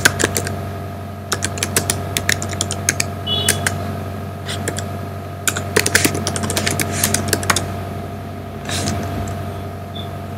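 Typing on a computer keyboard: quick runs of key clicks in several bursts, stopping about three-quarters of the way through, over a steady low hum.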